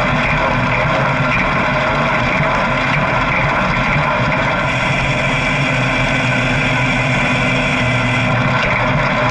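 Motorcycle engine running at a steady speed, mixed with wind noise on the action camera's microphone.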